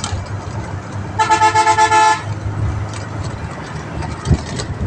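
A vehicle horn sounds once for about a second, a loud pitched blast, over the steady low rumble of a moving road vehicle.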